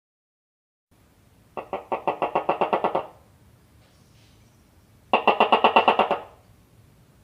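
Gecko chirping: two rapid series of sharp chirps, about nine a second, each series lasting just over a second, with a pause of about two seconds between them.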